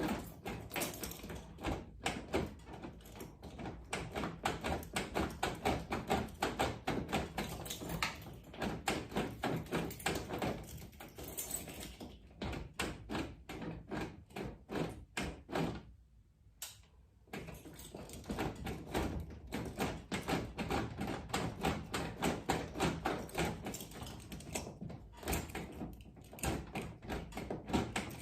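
Key being jiggled and twisted in the sticking manual door lock cylinder of a 1995 Nissan D21 pickup: a rapid, uneven run of metallic clicks and rattles, with a short pause a little past the middle. The clicking is the stuck lock not turning freely.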